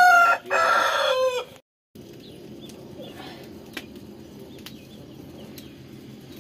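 A rooster crows loudly, a drawn-out call that ends about a second and a half in. After an abrupt cut comes a steady low background with a few faint crackles from the wood fire and faint high chirps of insects or birds.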